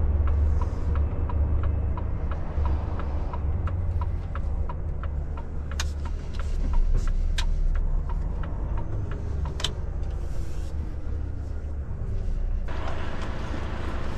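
Volvo FH460 truck's diesel engine rumbling low in the cab while the turn-signal indicator ticks steadily, about two to three times a second, for the first five seconds or so. A few sharp clicks follow, and near the end a steady hiss starts suddenly.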